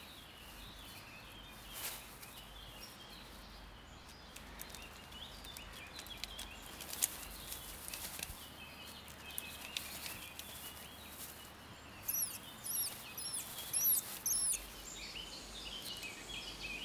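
Faint woodland ambience with small birds chirping, and a run of high, quick chirps a little after the middle.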